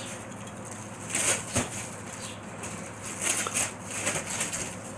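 Plastic shrink wrap being handled and pulled, crinkling and rustling in several short, uneven bursts.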